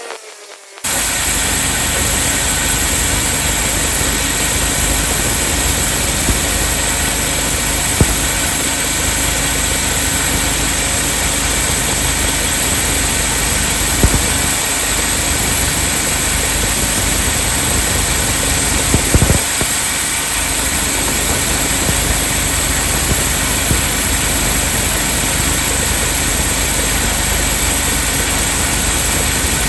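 Bandsaw sawmill's engine running loud and steady, starting abruptly about a second in.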